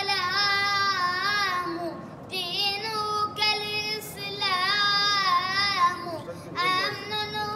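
A boy singing an unaccompanied Arabic nasheed in praise of the Prophet, drawing out long ornamented notes with a wavering pitch. He breaks off briefly about two seconds in and again near the end.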